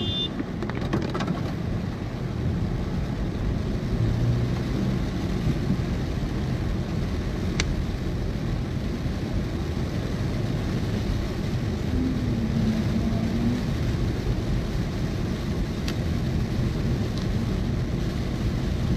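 Car driving on a rain-wet road, heard from inside the cabin: a steady low rumble of tyres and engine.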